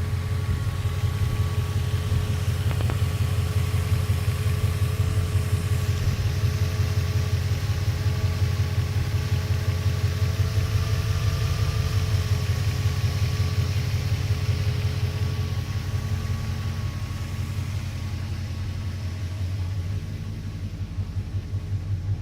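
BMW E32 740iL's 4-litre V8, with 281,000 km on it, idling steadily: a low even pulsing with a faint steady whine above it.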